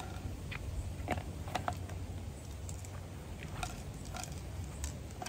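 Handling noise of a small plastic bottle and a plastic bag: a few scattered light clicks and rustles over a steady low rumble.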